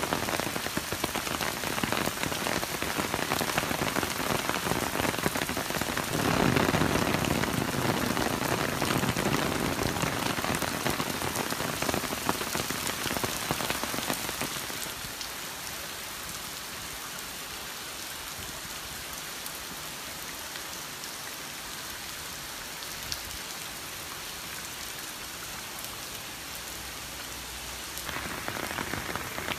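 Heavy typhoon rain falling and splashing on pavement, a dense steady hiss that grows louder and fuller for several seconds, then drops to a quieter, even downpour about halfway through and swells again near the end.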